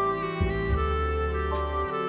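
Instrumental background music: held notes over a low bass line, with a short percussive tick about one and a half seconds in.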